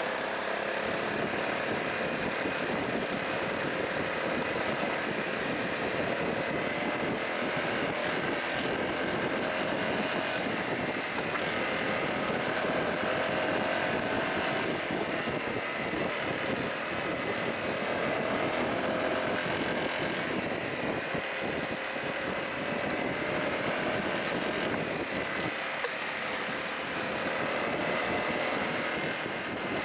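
Honda CRF250L's single-cylinder four-stroke engine running under way, its pitch rising and falling gently with the throttle, over a steady rush of wind and tyre noise on a gravel road.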